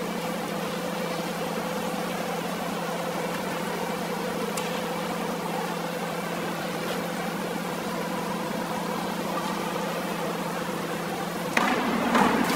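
Steady hum of an indoor diving pool hall's ambience while the diver waits still on the springboard. Near the end, a sudden louder rush of noise as the diver completes the inward 3 1/2 somersault and enters the water.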